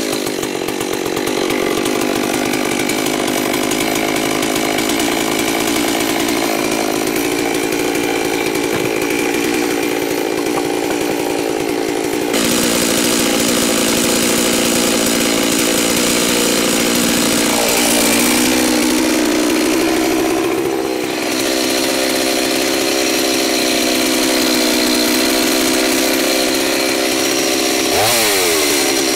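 G388 two-stroke chainsaw with a long bar running at high revs while cutting through a log. The engine note dips and recovers around twenty seconds in and wavers near the end. The saw is new, still on factory settings and a rich 1:25 break-in fuel mix.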